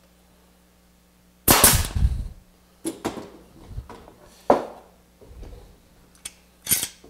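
Pneumatic 18-gauge brad nailer (Grex 1850GB) firing once about a second and a half in, a single sharp shot. Several lighter knocks follow as the board and clamps are handled on the wooden bench.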